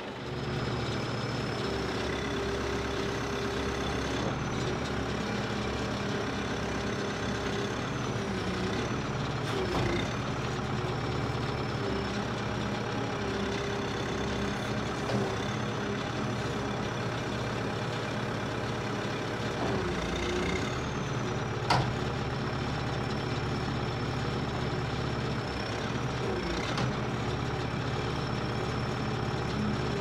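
New Holland 585E backhoe's diesel engine running steadily while its hydraulic boom is raised and then extended. The engine note dips briefly about three times under hydraulic load, and there is one sharp click about two-thirds of the way through.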